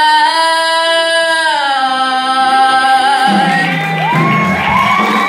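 Singing: a voice holds a long high note with vibrato, then slides down to a lower held note. About three seconds in, the music changes, with new low notes and rising tones entering.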